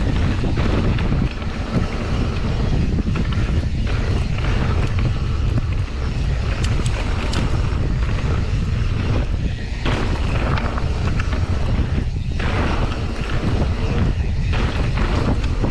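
Wind buffeting the microphone of a camera riding along on a mountain bike, over the steady rumble of tyres on a dirt trail, with short clicks and rattles as the bike runs over bumps.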